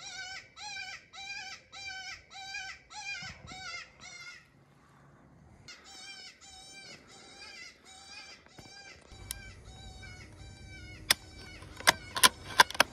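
A coyote predator call sounding a repeated high-pitched distress cry, about two cries a second, with a short break about four and a half seconds in. Near the end come several sharp metallic clicks from the rifle: it misfires and another round is chambered. The shooter puts the misfire down to the hammer not being all the way down.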